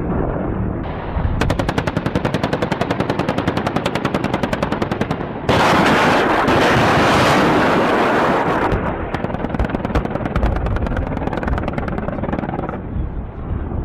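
Rapid-fire shots from the AH-1Z Viper's 20 mm three-barrel cannon: a long run of quick, evenly spaced reports starting about a second in. Near the middle a louder continuous rushing noise takes over for about three seconds, then further rapid shots follow.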